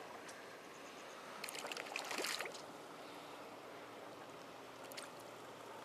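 Faint, steady lapping of seawater, with about a second of splashing a second and a half in from a hooked small mackerel thrashing at the surface as it is reeled in.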